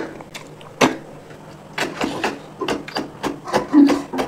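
Close-miked eating sounds: a string of sharp, wet mouth smacks and slurps as snails and rice are eaten by hand and the snails are sucked from their shells, with a brief low hum near the end.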